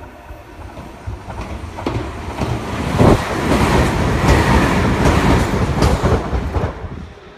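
Meitetsu electric train passing close by, its wheels clacking over the rail joints; the noise builds from about two seconds in and drops away near the end.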